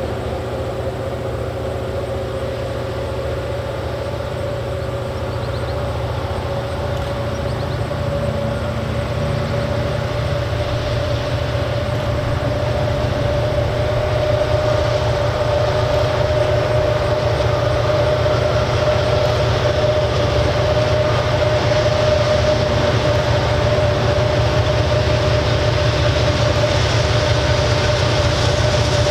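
Norfolk Southern freight train's diesel locomotives, an SD70ACe, an SD60E and an ES44AC, approaching from a distance. A low engine rumble grows slowly louder, with a steady whine over it.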